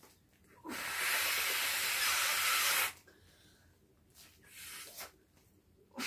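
A plastic beach ball being blown up by mouth: one long breath of air hissing into its valve for about two seconds, a shorter, fainter breath about two seconds later, and the next long blow starting at the end.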